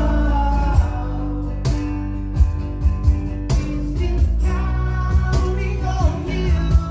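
Live unplugged rock performance: acoustic guitars strumming and picking in a steady rhythm under a sung melody.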